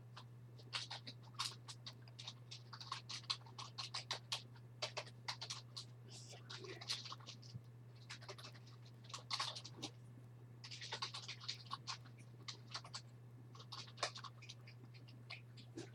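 Irregular short scratching and clicking handling noises, some in quick clusters, over a steady low electrical hum.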